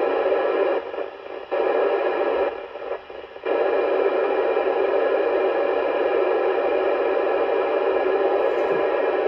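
Ham radio transceiver's speaker hissing with steady receiver static while tuned to the ISS 70 cm downlink with no voice coming through. The hiss drops out sharply twice in the first few seconds, then resumes.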